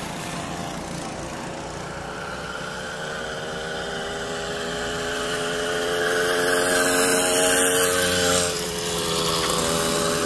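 Small petrol engine running steadily, its pitch and loudness climbing gradually as it speeds up, then dropping back about eight seconds in as it eases off.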